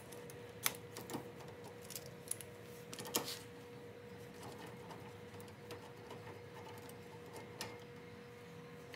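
Faint, scattered metallic clicks and small rattles of a 3/4-inch socket on a long 3/8-drive extension as the steering-wheel nut is spun off by hand, over a faint steady hum.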